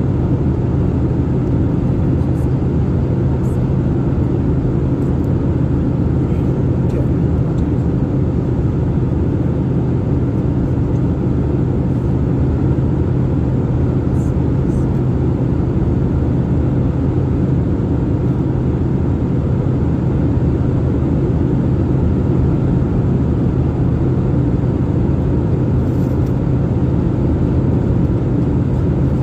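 Steady drone of an airliner's engines and airflow inside the passenger cabin, with a constant low hum.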